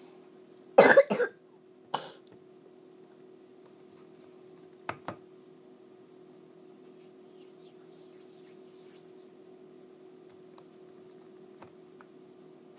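A child coughing close to the microphone: a loud double cough about a second in, then one more cough a second later. Two light clicks follow a few seconds after.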